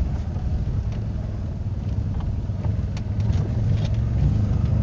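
Car engine and tyre noise heard from inside the cabin while driving slowly over a rough, broken road, with a few faint knocks. It gets louder near the end.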